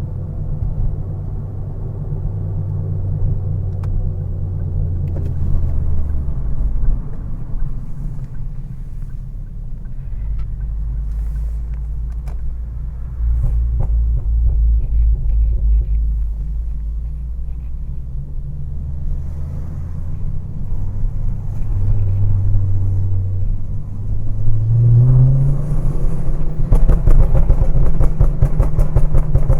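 Engine of a turbocharged Ford ST heard from the driver's seat while driving. The engine note drops about six seconds in, rises as it revs up about twenty-four seconds in, and is louder near the end.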